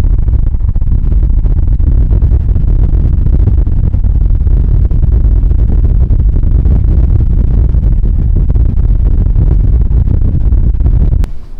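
Strong wind buffeting the microphone: a loud, steady low rumble that cuts off abruptly near the end.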